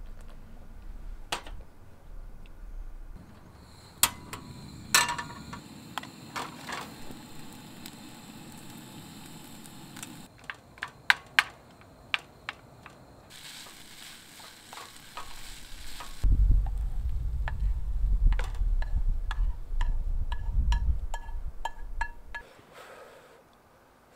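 Meal preparation and eating sounds: utensils and dishes knocking and clinking, some with a short ring, then a stretch of hiss, then a louder low rumble with small regular ticks for about six seconds near the end.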